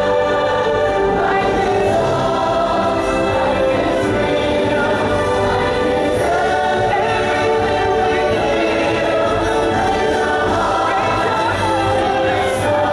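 Choral and orchestral show music: a choir singing long held notes over an orchestral backing, with no break.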